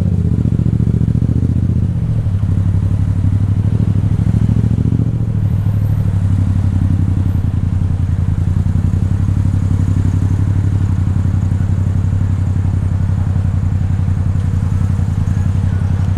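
A Yamaha MT-07's parallel-twin engine running at low revs as the motorcycle creeps between stopped cars. The revs rise slightly twice in the first five seconds, then the engine holds a steady low note.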